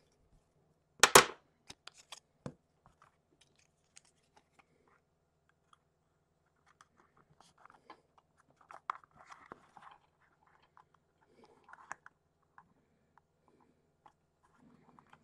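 Craft knife cutting a small curved piece of thin plasticard, with a sharp crunching snap about a second in and a couple of lighter clicks after it. Then soft clicks and rustling as the plastic piece is handled and pressed onto a plastic model carriage body.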